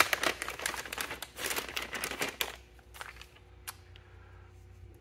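Static-shielding bag crinkling as the replacement circuit board is handled and pulled out, for about two and a half seconds, then a few faint clicks.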